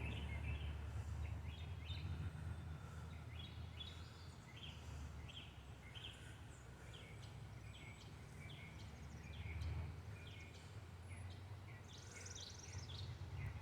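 Small birds chirping in short, repeated calls, over a faint low rumble that swells briefly about ten seconds in.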